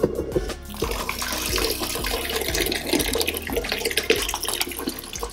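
Cola poured from an aluminium can in a steady stream into a tub, splashing and fizzing, starting about a second in.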